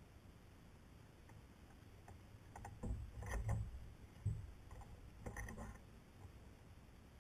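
Fishing gear being handled aboard a plastic sit-on-top kayak: dull knocks and two short clusters of light clicks, about three and five seconds in, as the paddle is laid across the hull and the baitcasting rod and reel are readied.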